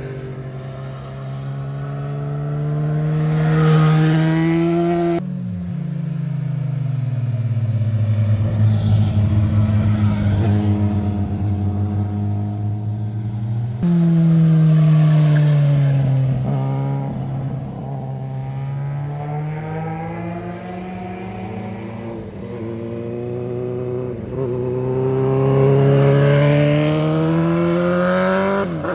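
Motorcycle engines passing on a winding mountain road, their note rising under acceleration and falling back several times. The sound jumps abruptly twice, about five seconds in and about halfway through, as one pass gives way to the next.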